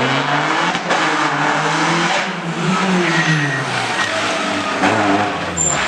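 Rally car engine revving hard as the car passes at speed: the pitch climbs for a couple of seconds, drops away midway, then climbs again near the end.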